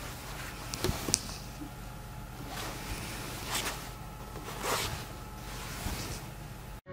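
Handling noise as a dressed dog mannequin is turned over: satin fabric rustling in a few soft swishes, with two light taps about a second in.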